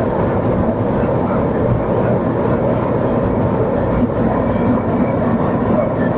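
Gas brazing torch flame burning steadily while a copper refrigeration pipe is brazed: a loud, even rushing noise.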